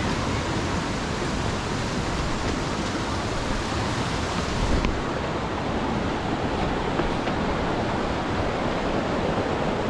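Waterfall: a steady rush of falling water, its hiss dulling slightly about halfway through.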